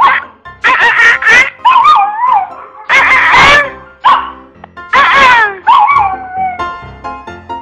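A puppy vocalizing in a run of about five drawn-out yowls and whines. Each call bends up and down in pitch, like a dog 'talking back'. Music comes in near the end.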